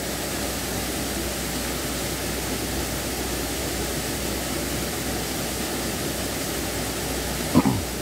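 Steady rushing noise of a small waterfall pouring into a quarry pond. Near the end there is one brief sound that falls quickly in pitch.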